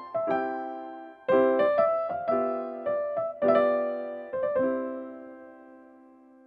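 Background piano music: a slow run of struck notes and chords, the last chord left to ring and die away near the end.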